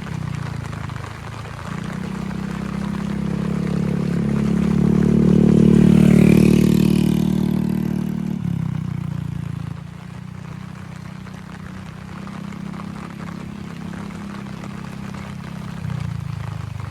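A motor vehicle passes close by, growing louder to a peak about six seconds in and then fading with a drop in pitch. A low, steady engine hum runs beneath it, over the hiss of heavy rain.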